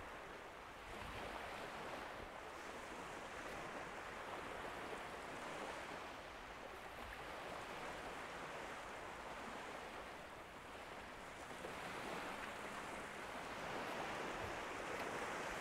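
Gentle surf washing onto the beach from a flat calm sea: a soft, even hiss that swells slightly near the end.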